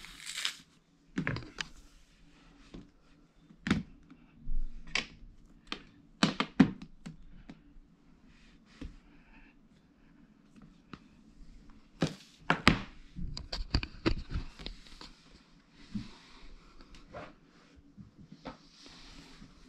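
Irregular taps, clicks and knocks of phones and packaging being handled and set down on a glass tabletop, loudest about six and a half and twelve and a half seconds in, with a little soft rustling later on.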